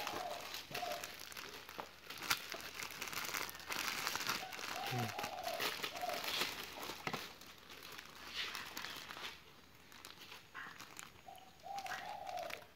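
Clear plastic bag around a disposable dust mask being handled, crinkling and rustling irregularly with short sharp crackles.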